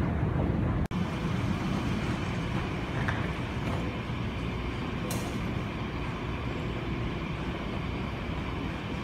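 Steady low rumble of an airport concourse's background noise, with a brief break in the sound about a second in.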